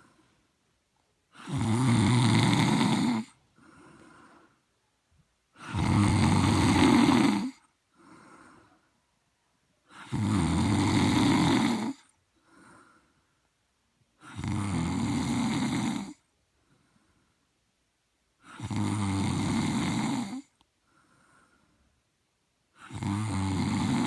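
A person snoring: six long snores about four seconds apart, each followed by a much quieter breath.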